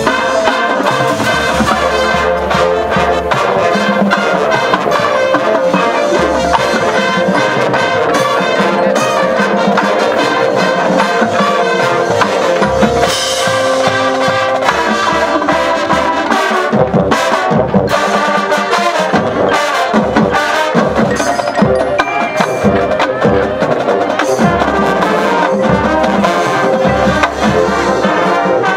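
High school marching band playing its field show: full brass section holding sustained chords over drumline and front-ensemble percussion.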